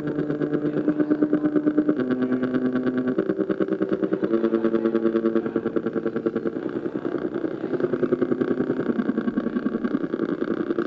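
Buzzing electronic tones from a loudspeaker playing the blinking of a spinning red-green-blue LED wheel turned into sound. Chords of steady pitches pulse rapidly and jump to new pitches about every second as the light pattern changes.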